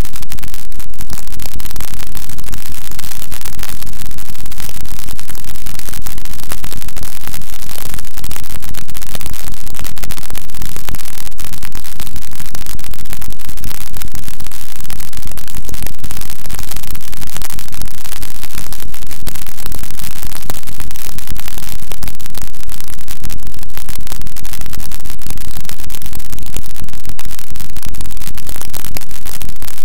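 Harsh noise music: a very loud, unchanging wall of static hiss filling the whole range from deep rumble to high fizz.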